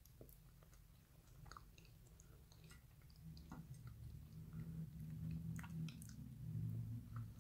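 Faint close-up sounds of someone chewing a bite of cheesecake, with scattered small clicks of a fork, getting louder from about three seconds in.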